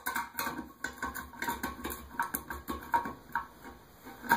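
Channel-lock pliers tightening the nylon locknut of a toilet flush valve against the porcelain tank: a string of irregular clicks and knocks as the jaws grip, turn and regrip the nut.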